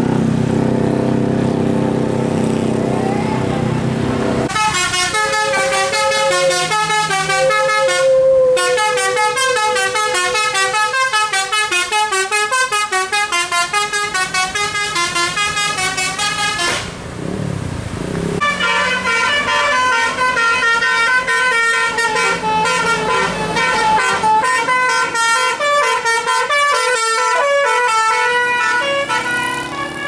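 Bus telolet musical air horns playing fast tunes of rapid stepped notes, starting about four and a half seconds in, breaking off briefly just past the middle, then starting again until near the end. A bus engine runs beneath at the start and in the break.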